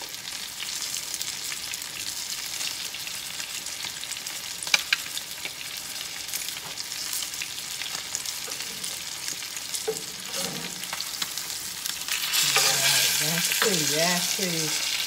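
Breaded swai fillets frying in hot butter and oil in a skillet: a steady sizzle. There is a sharp tap about five seconds in, and the sizzle grows louder near the end as a spatula works in the pan.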